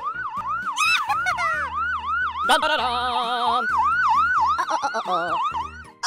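Emergency vehicle siren sound effect in a fast yelp, rising and falling about three times a second, over a children's music track.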